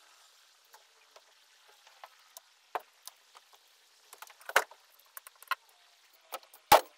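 Scattered light clicks and knocks from a reciprocating saw and the boat's panels being handled, with two louder knocks, one about four and a half seconds in and one near the end.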